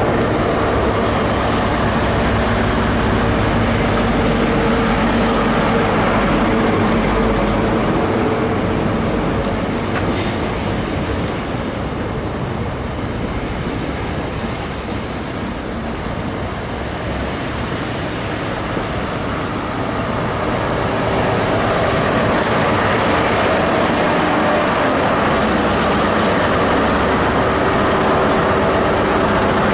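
GWR InterCity 125 high-speed train moving along the platform: a steady rumble of coaches and wheels on the rails, with a brief high hiss about halfway. It grows louder in the last third as the Class 43 power car's diesel engine comes by close.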